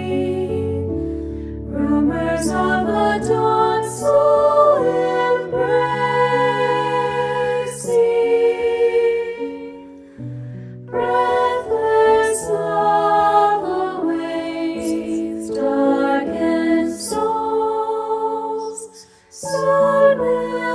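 Mixed choir singing a slow hymn in sustained phrases, accompanied by a keyboard piano. The voices pause briefly between phrases about ten seconds in and again near the end.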